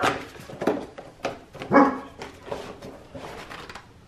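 A dog barking, about four short barks in the first two seconds, followed by a few fainter clicks.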